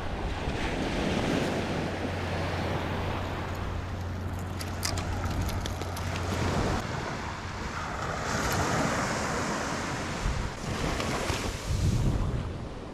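Ocean surf breaking and washing up the beach in repeated swells, with wind buffeting the microphone. A short run of faint clicks comes about five seconds in.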